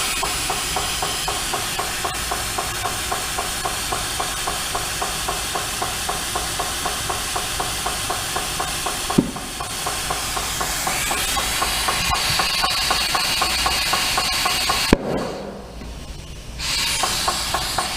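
Compressed air hissing into a tire through the valve stem with its valve core removed, inflating it quickly, over a steady rhythmic pulsing of about four to five beats a second. A sharp bang about fifteen seconds in, then the air stops for a moment and starts again.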